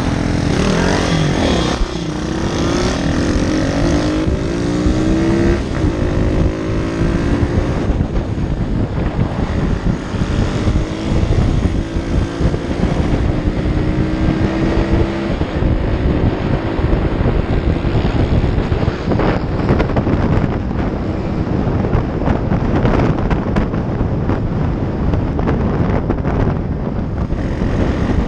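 Single-cylinder pit bike engine accelerating through the gears: three rises in pitch in the first six seconds, each broken by a drop at the shift, then running at a steady speed. Wind rushes over the microphone, taking over in the second half.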